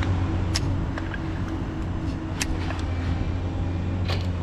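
Vehicle engine idling steadily with a low hum, with three short sharp clicks about half a second, two and a half and four seconds in.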